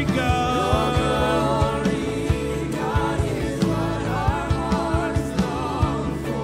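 Gospel worship song: a male lead vocal sings long, wavering lines over sustained chords, with regular drum hits.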